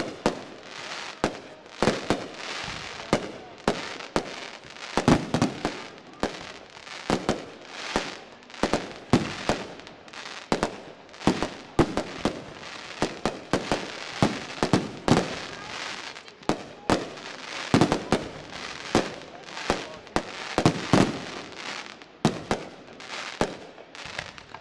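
Aerial firework shells bursting in quick succession during a fireworks display: dozens of sharp bangs, one or more every second and often two or three close together, with crackling in between.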